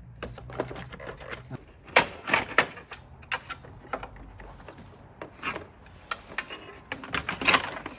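Irregular knocks, clicks and clatter of hands working on car parts, loudest about two seconds in and again near the end.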